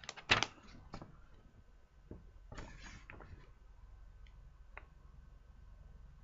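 Handling noises from a plastic model kit and its paperwork being looked through: a few sharp clicks in the first second, a short rustle about two and a half seconds in, then a couple of faint ticks.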